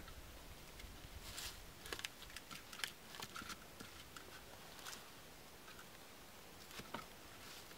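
Faint, irregular rustles and light clicks of dry leaf litter and wood being handled, thinning out after the first few seconds.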